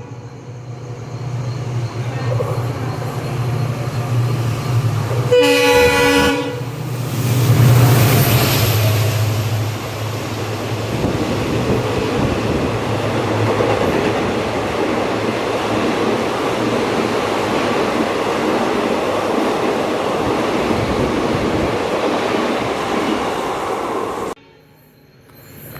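A train sounds its horn once for about a second, a few seconds in, over a steady low drone, then runs past with continuous wheel-on-rail noise. The sound drops away suddenly near the end.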